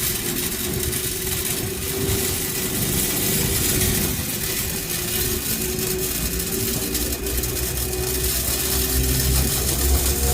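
Grain dryer machinery running steadily, a continuous mechanical hum and hiss, with a low rumble growing stronger near the end.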